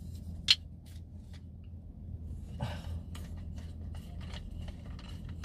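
Plastic clicks and rubbing from a Zhiyun Smooth 4 handheld phone gimbal and its mini tripod being handled and folded. There is one sharp click about half a second in and a scraping rub near the three-second mark.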